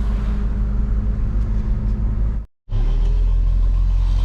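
Pickup truck driving, heard from inside the cab: a steady low engine and road rumble. The sound cuts out abruptly for a fraction of a second about two and a half seconds in, then resumes.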